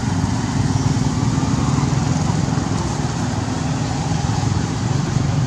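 Steady low engine drone of a motor vehicle running, unbroken through the whole stretch.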